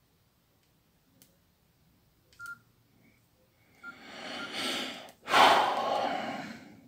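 Short electronic key beeps and clicks from a Nokia E-series QWERTY phone as its keys are pressed, followed about four seconds in by a loud breathy rush, a breath drawn in and then let out in a long sigh.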